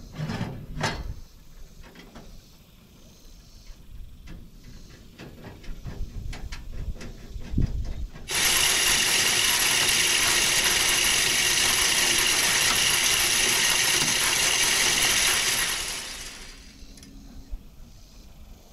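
Game feeder's spinner motor running for about seven seconds and flinging corn, the kernels rattling hard against the metal; it starts abruptly and winds down at the end. Before it, a string of light clicks and taps as the feeder is worked on.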